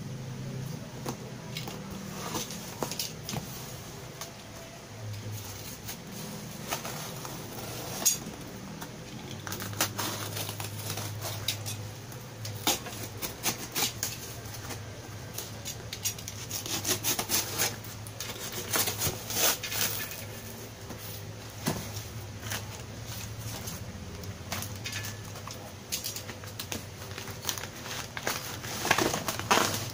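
Cardboard shipping box being unpacked by hand: packing tape cut with a blade, cardboard scraping and rubbing as the flaps are pulled open, with irregular sharp clicks and scrapes. Near the end, the plastic air-column wrapping inside rustles and crinkles as it is handled.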